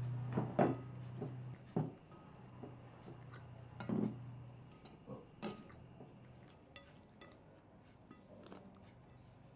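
Metal spoons and forks clinking and scraping against plates in scattered clicks as two people eat a meal. A low steady hum runs underneath and fades out about six seconds in.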